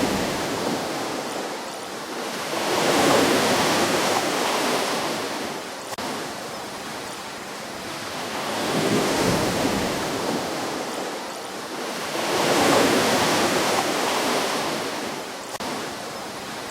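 Ocean waves breaking and washing up a beach, the surf swelling and ebbing in three slow surges, one every four to six seconds.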